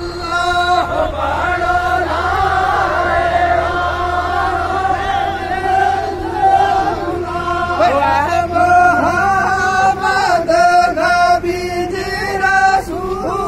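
A group of men's voices chanting together in unison, with long held notes that bend up and down and break off only briefly.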